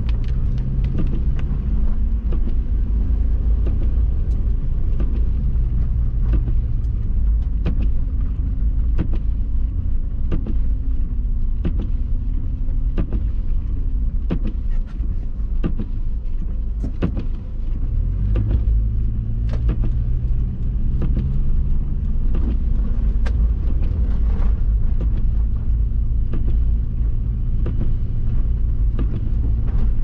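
Inside the cabin of a 2005 Subaru Forester X driving on snowy streets: a steady low road-and-tyre rumble under the hum of its 2.5-litre flat-four engine, whose note shifts in steps. Frequent sharp clicks and knocks sound over it.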